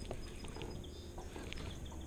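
Faint, irregular light clicks and knocks from rod-and-reel handling in a boat as a hooked pike is reeled in, over a low steady hum.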